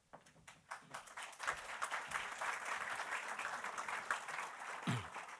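Audience applauding: many hands clapping together, building about half a second in and tapering off near the end.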